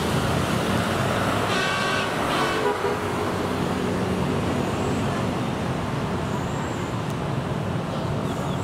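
Steady city street traffic noise, with a short horn toot about two seconds in.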